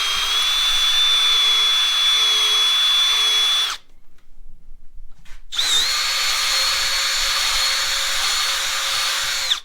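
Power drill running at steady speed, drilling holes through the bar for the monitor mount's U-bolts. There are two runs of about four seconds each, with a high whine and a short pause between them.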